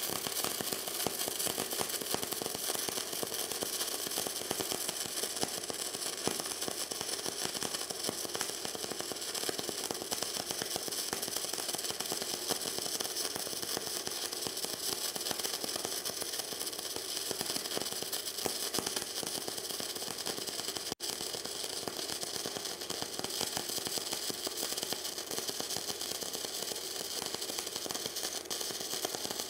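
Gasless flux-cored wire welder (WR0-250) running a continuous, steady arc as it lays a bead on a 6 mm stainless steel plate, with one momentary break about two-thirds of the way through.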